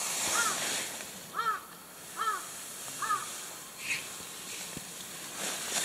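A bird calling from outside the tent, five short harsh arched caws roughly one a second, over a faint steady hiss.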